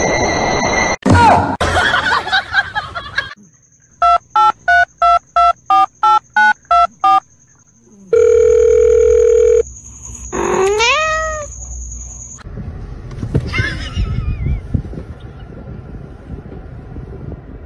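Telephone keypad tones: about nine evenly spaced beeps over three seconds, then a steady telephone tone for about a second and a half. A rising pitched call with overtones follows about two seconds later.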